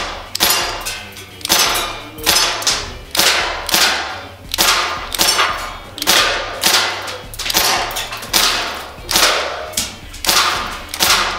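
Colt Defender CO2 BB air pistol fired semi-automatically in a steady string, about one shot every three-quarters of a second, at hanging metal targets and cans. Each shot is a sharp crack followed by a short ringing trail.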